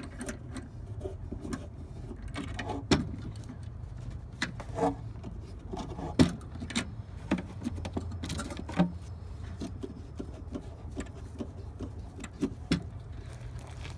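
Scattered clicks, taps and knocks of hands working hardware: the threaded leveling foot of a bike-blender frame being unscrewed and a plastic bin pushed against the frame, with a few sharper knocks. A steady low hum runs underneath.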